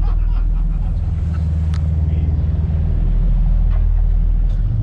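Sportfishing boat's engines running steadily under way, a low steady drone with wind and water noise over it.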